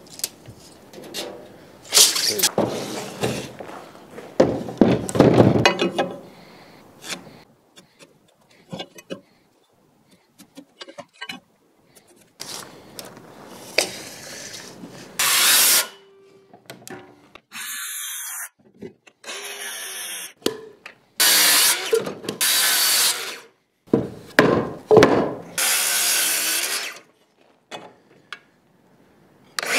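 Power tools working pressure-treated lumber: a power saw cutting and a drill running, in a series of separate bursts that start and stop abruptly, with short quiet gaps between them.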